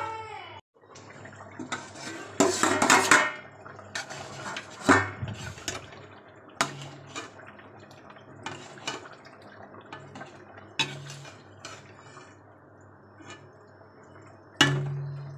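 Perforated metal skimmer ladle scraping and clinking against a metal kadai while stirring a thin, watery curry, with the gravy sloshing. Strokes come irregularly, with a dense loud run of scrapes about two and a half seconds in.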